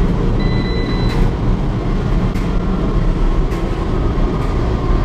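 A Lavomatic coin-operated dryer's control panel beeps once as its start button is pressed, a single high electronic tone lasting under a second. It is heard over a steady loud low rumble.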